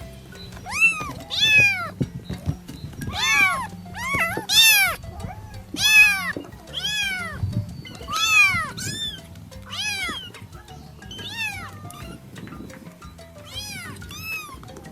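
A cat meowing over and over, short rising-then-falling meows about one a second, with background music underneath.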